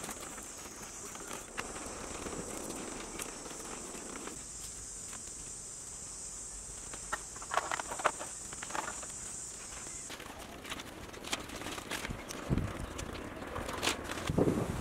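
Bamboo poles knocking and clattering as they are handled and fitted into a frame, in scattered sharp knocks, a few heavier thuds near the end. A steady high insect buzz runs behind and cuts off suddenly about two-thirds of the way through.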